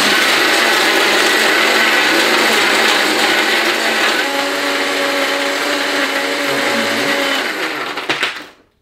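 Philips countertop blender running at full speed, crushing ice cubes with tequila and lime into a frozen margarita. About four seconds in, a steadier motor hum comes through the grinding noise, and the blender cuts off suddenly near the end.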